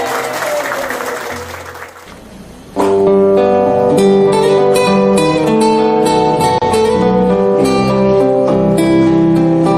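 Room noise with voices fades out over the first two seconds. About three seconds in, acoustic guitar music starts abruptly and carries on as a steady run of plucked notes.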